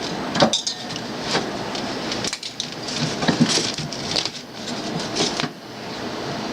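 Irregular rattling, rustling and clicking of a water cooler's parts being handled and pulled apart during a teardown for scrap.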